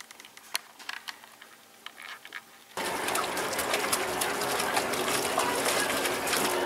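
Faint scattered clicks, then from about three seconds in a sudden, steady rush of running and splashing water with many small splashes.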